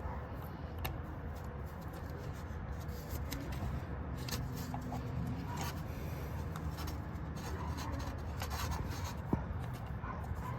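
Hand work on shifter parts: faint rubbing and a few light ticks over a steady low rumble.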